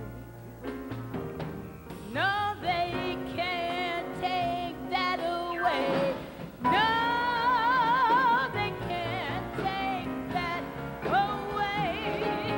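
A woman singing jazz, wordless scat, slides into long held notes with a wide vibrato, over instrumental accompaniment.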